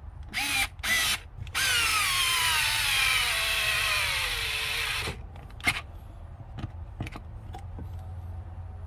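Small cordless electric screwdriver driving a long screw into wood: two short bursts, then a long run in which the motor's pitch drops steadily as it slows under load, stopping about five seconds in. The screw is too long for the tool to drive fully. Afterwards there are a few light clicks and knocks of handling.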